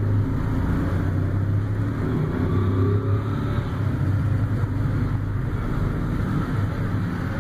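Steady low mechanical drone, even in level throughout.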